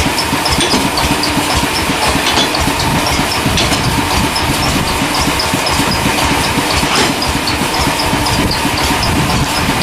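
Engine running steadily with a rapid low chugging, most likely the engine powering the sawmill, with a faint high ticking repeating through it.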